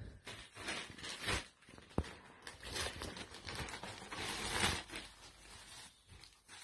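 Plastic mailer bag crinkling and rustling in irregular bursts as it is opened and clothing is pulled out of it, with one sharp click about two seconds in.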